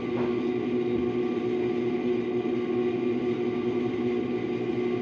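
A steady drone of several unchanging tones with a low hum beneath, and no speech.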